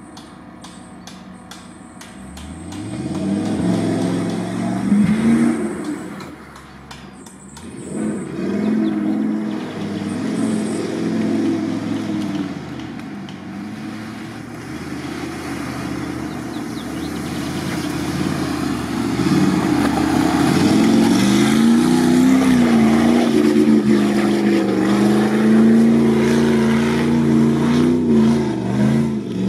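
Off-road 4x4 engine revving as it pushes through deep mud. The revs rise and fall several times and are held high and steady near the end.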